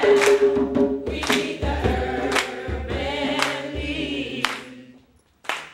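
A group of young voices singing together in chorus, with a sharp beat about once a second, fading out about four and a half seconds in. A short sharp sound comes just before the end.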